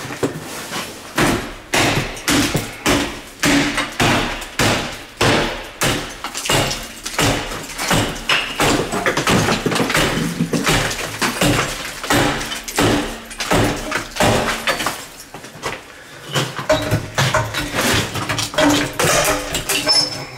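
A claw hammer repeatedly striking the door of a small metal wall safe, in sharp blows about two a second, with a brief lull about three quarters of the way through, as the safe is beaten to break it open.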